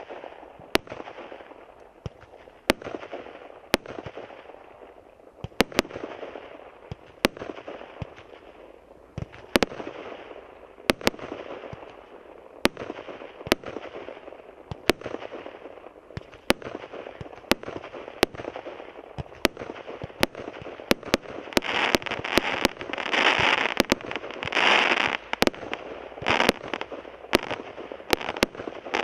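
A 36-shot, 20 mm firework cake (Luna Park SU-5) firing shot after shot. Each shot gives a sharp bang, about one a second, with a hiss between the bangs. About 22 seconds in, a dense, louder crackling sets in for several seconds, from the crackling peony stars of the finale.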